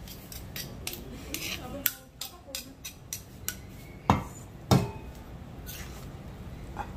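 Dishes and cutlery clinking and knocking: a run of light clinks, then two louder knocks about four and a half seconds in.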